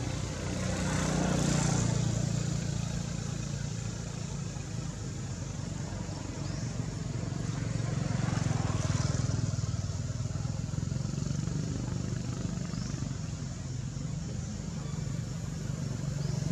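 Low engine hum of passing motor vehicles, swelling louder a couple of times and then fading back.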